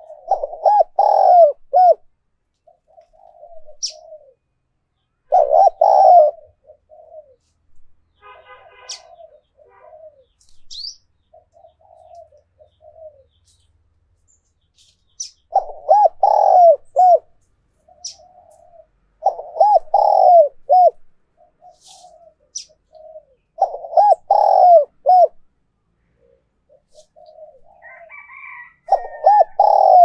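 Spotted dove cooing in loud phrases of several quick coos, about six phrases a few seconds apart with a quiet spell partway through, and softer coos between them. Faint high chirps of small birds come and go.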